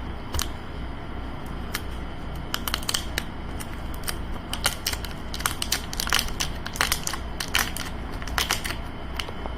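Cardboard shipping box and its packing tape being handled, with scattered sharp crackles and taps that come thicker in the second half, over a steady low hum.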